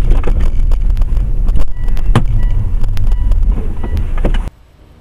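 Loud, steady low road and engine rumble picked up inside a moving car by a dashcam, with a few sharp knocks. It cuts off abruptly about four and a half seconds in.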